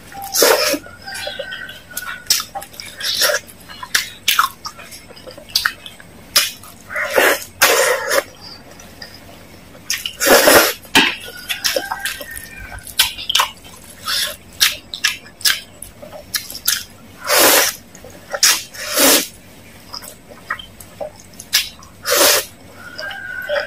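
Close-up eating sounds: noodles slurped in loud, short bursts at irregular intervals, with wet chewing and mouth noises between them.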